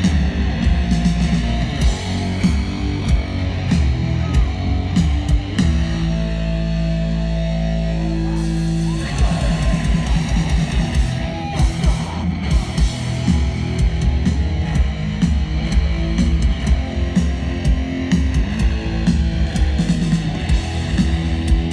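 Hardcore punk band playing live and loud, with distorted guitars, bass and pounding drums. About five and a half seconds in, the band holds one ringing chord for about three seconds before the drums crash back in.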